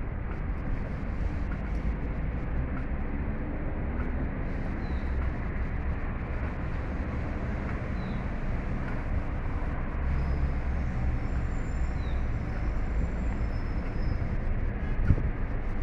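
Steady low vehicle rumble with a constant haze of outdoor noise. A faint short high chirp recurs every few seconds.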